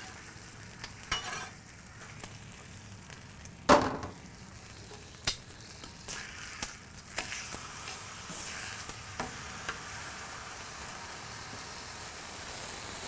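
Two thick ribeye steaks sizzling in beef tallow on a stainless flat-top griddle, a steady frying hiss that swells a little in the second half. Several sharp metal clicks and scrapes of the steak weight and spatula on the griddle top, the loudest about four seconds in, as the steaks are lifted and flipped.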